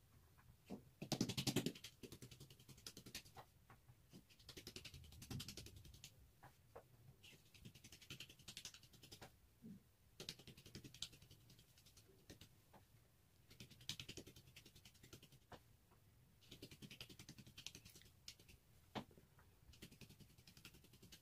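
Faint, soft rustling that comes and goes every few seconds as thin hand-rolled baklava dough sheets are handled and dusted with flour, with a few light taps.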